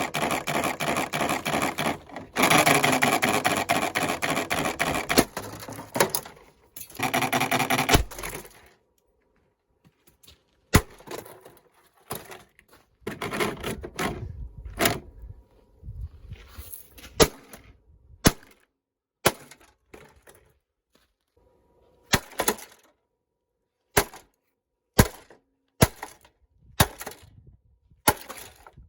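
A loud, dense rasping noise with a fast rhythm for about eight seconds. Then come a dozen or so sharp cracks and knocks, roughly one a second, as a ventilation fan is broken apart.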